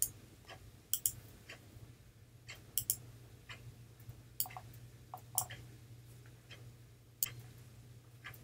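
Computer mouse clicking, a dozen or so short sharp clicks at irregular intervals, over a low steady hum.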